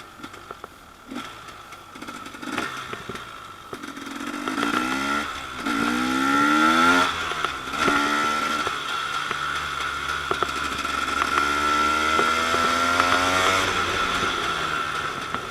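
2013 KTM 250 EXC's single-cylinder two-stroke engine revving, its pitch climbing several times from about four seconds in, after a few scattered clicks.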